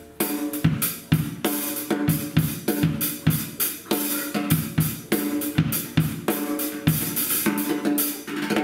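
Yamaha acoustic drum kit played in a steady beat, with bass drum, snare and cymbal strikes about two to three a second and the drums ringing between hits.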